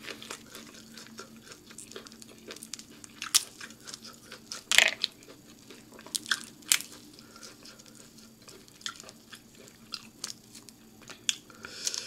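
Close-up eating sounds: chewing and mouth smacks mixed with scattered crackles and snaps as boiled seafood shells are picked apart by hand, the sharpest snaps about three and a half and five seconds in.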